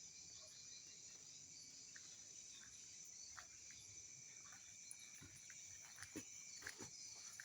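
Near silence, with a faint steady high-pitched chirring of insects such as crickets and a few soft, short sounds scattered through the latter half.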